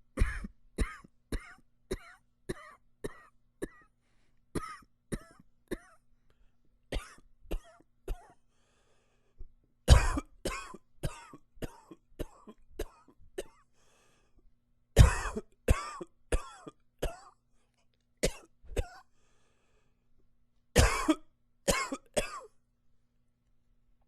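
A man coughing in repeated fits: a quick run of about eight short coughs, then small groups of two or three, with louder, harsher fits of several coughs about ten seconds in, again around fifteen seconds, and near the end.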